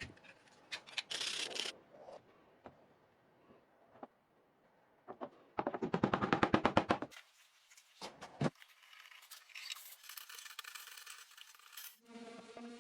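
Short bursts of scratching and scraping as old paint is picked out of the wood grain with a hand tool. The loudest part comes midway, a quick run of rapid scratching strokes lasting about a second and a half.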